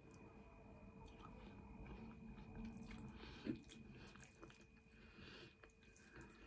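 Faint chewing of a mouthful of spaghetti and chicken hot dog, with a few soft ticks; one tick about halfway through stands out a little.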